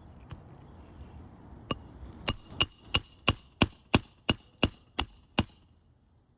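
Roofing hammer driving the last roofing nail into a replacement 3-tab asphalt shingle: one light setting tap, then about ten sharp ringing blows at roughly three a second.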